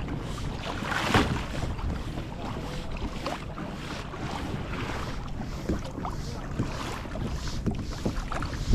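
Water splashing and lapping irregularly against a kayak at sea, with wind buffeting the microphone.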